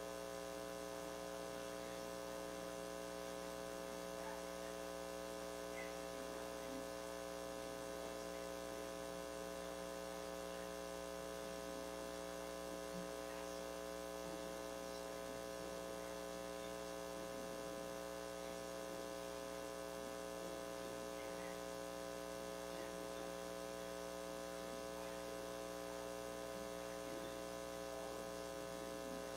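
Steady electrical mains hum with several tones held at once, unchanging throughout, and no other sound above it.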